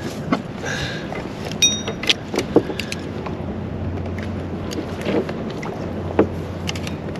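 Scattered, irregular clicks and knocks of fishing gear on a kayak, over a low rumble of wind on the microphone.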